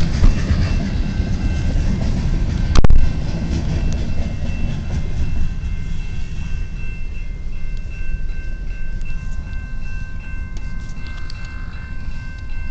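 Freight train cars rolling past with a steady low rumble and a thin steady high whine over it; a sharp bang about three seconds in, and a few lighter clicks near the end.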